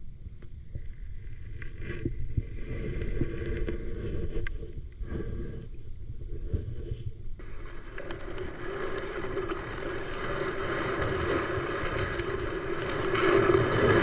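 Muffled water noise as picked up by a camera held underwater, with scattered knocks and scrapes. About seven seconds in, the sound changes abruptly to a denser hiss with a steady low drone.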